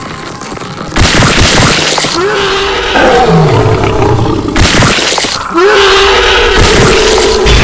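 Two monster roar sound effects, each a harsh, noisy cry that rises and then holds its pitch. The first comes about two seconds in; the second, a Predator roar, starts about halfway and runs almost to the end. A loud noisy rush sets in about a second in, before the first roar.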